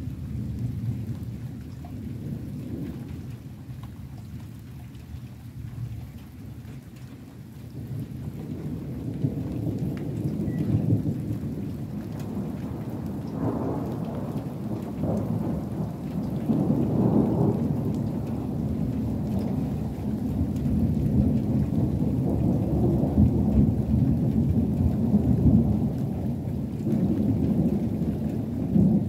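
Thunder rolling in a long low rumble that builds about eight seconds in and swells several times, with rain falling.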